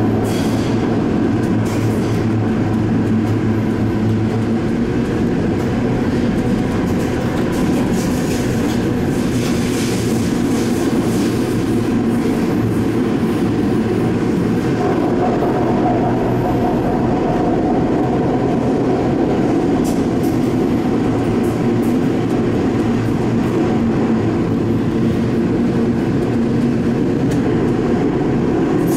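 Sendai Subway Tozai Line 2000 series linear-motor metro train running at speed through a tunnel between stations: a steady rumble of wheels on rail with a low hum. A faint higher tone joins about halfway.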